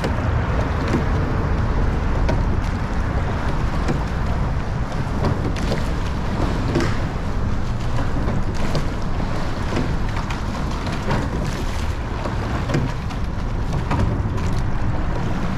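Wind buffeting the microphone and water rushing along the hull of a rowing eight under way, with a few faint, irregular knocks.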